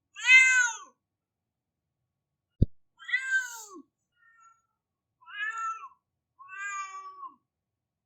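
Domestic cat crying: four drawn-out meows, each under a second, rising then falling in pitch. A short, low thump comes between the first and second meows.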